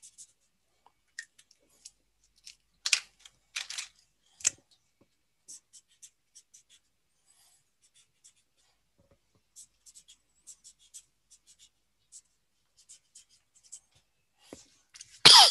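Felt-tip marker scratching on paper in short strokes as arrows and letters are drawn, with a louder scrape or knock just before the end.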